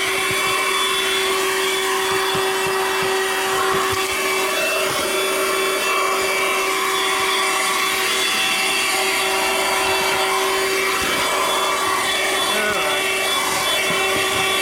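Audew 12V handheld car vacuum running without a break, its motor holding one steady pitch, with rough scraping and rubbing as the nozzle is worked over the car's surfaces.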